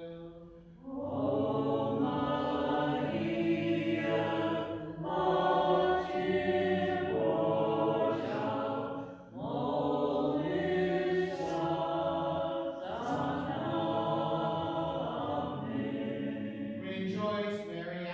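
Liturgical chant of a Byzantine-rite moleben, sung by voices in long held phrases. There are short breaks about a second, five seconds and nine seconds in.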